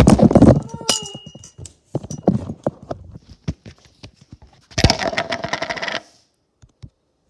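Slime being squished and blown into: wet squelching with many quick crackles and pops. A loud squeaky squelch comes at the start, and a second-long burst of bubbling and crackling about five seconds in.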